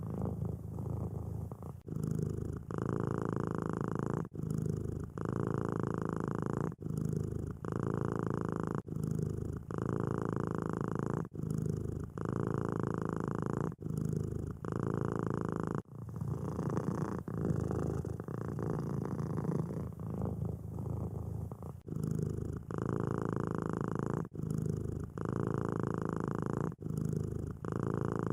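Tabby-and-white kitten purring close up, a steady rumble with a short break about every second or so at each turn of its breath.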